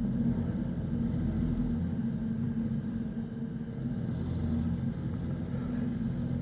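An engine running steadily at a constant speed: an even low hum that holds one pitch.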